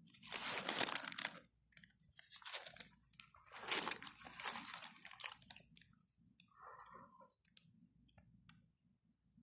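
Someone eating a snack close to the microphone, crunching and chewing in three loud bursts over the first five seconds, then a few soft clicks.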